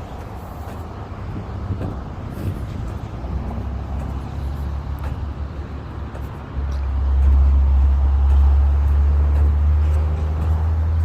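Vehicle running with a low, steady rumble that steps up sharply and gets louder about six and a half seconds in, as when the vehicle pulls away or speeds up.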